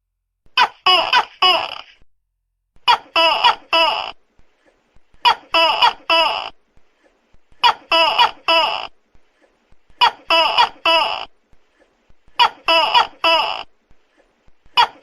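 Tokay gecko calling loudly, short three-syllable call groups repeating at an even pace about every two and a half seconds.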